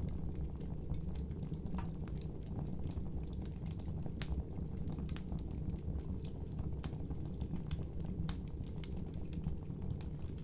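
Wood fire crackling: a steady low rumble of flames with irregular sharp pops and snaps, several a second.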